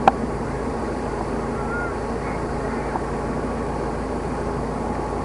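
Steady low hum over a constant hiss of outdoor background noise, with a single sharp click right at the start.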